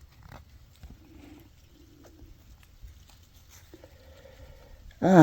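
Faint clicks and soft rustling of small handling sounds, then a man's short voiced sound, like a grunt, at the very end.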